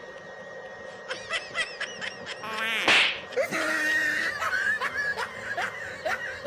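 Giggling, snickering laughter, with a loud wobbling cartoon-style sound effect about three seconds in, as one man jumps onto the other.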